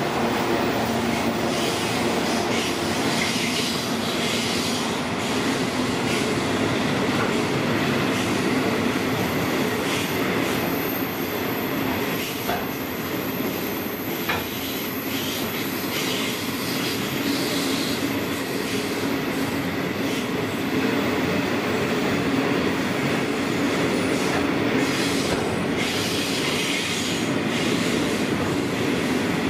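Container freight wagons rolling steadily past at close range: a continuous rumble of steel wheels on rail, with a few sharp clicks around the middle.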